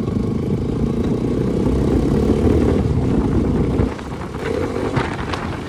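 Bajaj Pulsar RS200's single-cylinder engine running loud through an aftermarket Akrapovic exhaust, dropping off about four seconds in as the throttle closes, followed by a few sharp exhaust pops.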